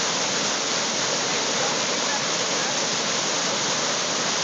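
Flash-flood water rushing through rapids in a field, a steady, unbroken rush.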